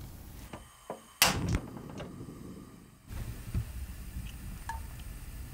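A single sharp knock of kitchenware on a hard surface about a second in, with a few lighter clicks before and after it, then a few faint ticks.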